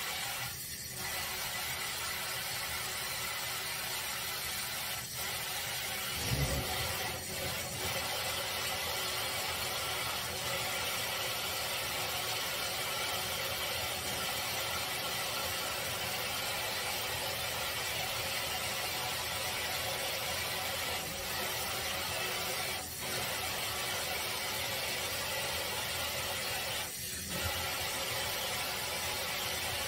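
Water running steadily from a pull-down faucet sprayer into a stainless-steel sink as a small dog is rinsed, with a brief low thump about six seconds in.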